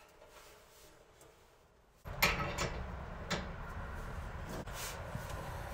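Lighting a Mr. Heater portable propane heater: a few sharp, irregular clicks, typical of its push-button igniter, over a low steady noise that starts suddenly about two seconds in.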